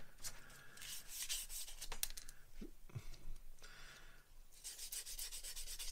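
Fine sanding sponge rubbed quickly back and forth over a small plastic model-kit part, a hissy scraping in short rapid strokes: one spell about a second in and a longer, faster run near the end, with a few light taps from handling in between.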